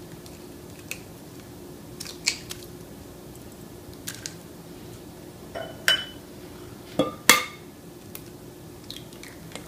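Two eggs being cracked on a glass mixing bowl: a handful of short, sharp taps and shell cracks spread through, the loudest about seven seconds in.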